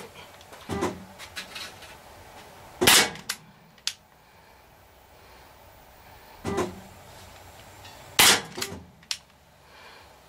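Walther CP99 CO2 blowback air pistol fired twice, about five seconds apart, each shot a sharp crack followed within a second by lighter metallic clicks. Softer knocks come a couple of seconds before each shot.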